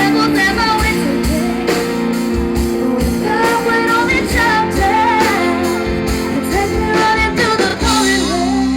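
Live pop-country band music: a singer over electric guitar, bass and a steady drum beat, with sustained chords and a bending melody line.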